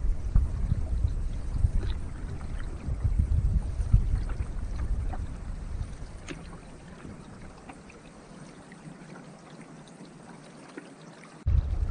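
Water splashing and trickling around a paddled canoe, with a low wind rumble on the microphone that dies away after about six seconds, leaving faint drips and splashes. The sound cuts off abruptly near the end.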